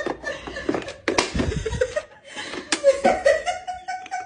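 A voice laughing in short, even pulses, with a heavy thump a little over a second in and a sharp knock later.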